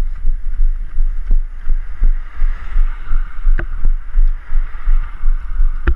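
Wind rumble on a body-worn GoPro's microphone, pulsing with the jolts of a runner's strides at about three a second, with a steady hiss over it and a few light clicks.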